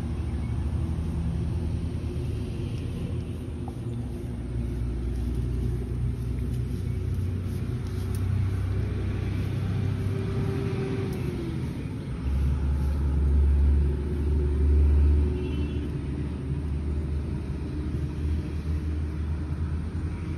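A steady low mechanical rumble with a hum in it, swelling louder for about three seconds a little past the middle.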